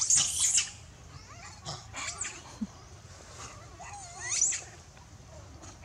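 Baby long-tailed macaque screaming in high-pitched squeals, distress cries calling its mother: a loud burst at the start, shorter cries about two seconds in, and a rising cry about four seconds in.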